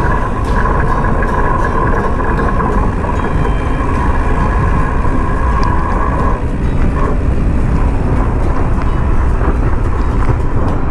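Mountain bike riding over rough ground: heavy wind rumble on the microphone and rattling clicks from the bike. A steady whine-like tone runs through the first six seconds and then stops.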